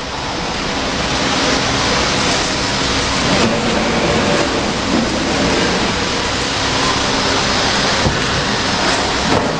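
Hydraulic tyre press baler running: a loud, steady mechanical noise that holds throughout, with a few light knocks.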